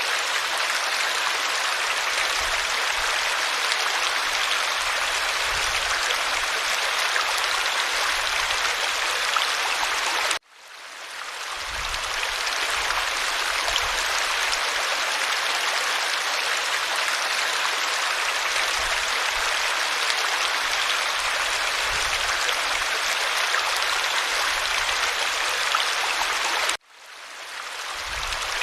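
Steady rushing and babbling of a stream. The water sound cuts out suddenly about ten seconds in and again near the end, fading back in over about a second each time.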